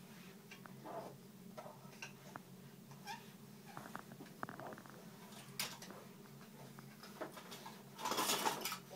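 Two young children playing with toy cars: brief high-pitched squeaks and babbles, a quick run of small clicks from the toys a little before the middle, and a louder burst near the end.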